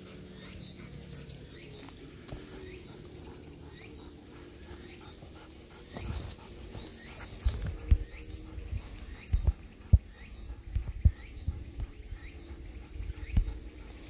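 A golden retriever moving and breathing close by, with irregular low knocks and thumps from about six seconds in. A bird gives a short high call twice, near the start and about seven seconds in.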